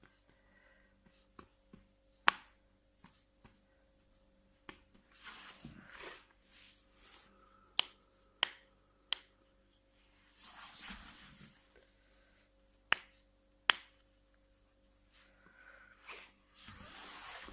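Spinal joints cracking during chiropractic adjustment: a series of sharp, short pops. There is a loud one about two seconds in, a quick run of three around eight to nine seconds, and two more near the thirteen- and fourteen-second marks. A few longer soft noises fall between them.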